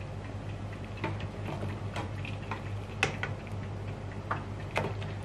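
Scattered light clicks and taps of kitchenware at the stove, a metal tray and steel pot being handled, about one a second and irregular, over a steady low hum.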